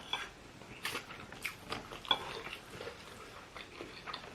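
Close-up eating sounds: chewing a meal of curry rice and grilled fish, with scattered short mouth smacks and clicks.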